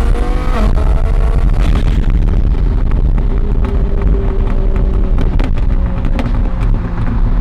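Twin-turbo Lamborghini Huracán V10, heard from inside the cabin while driving hard. The revs climb and drop as it shifts about half a second in. It then pulls steadily with a scatter of sharp exhaust pops and crackles.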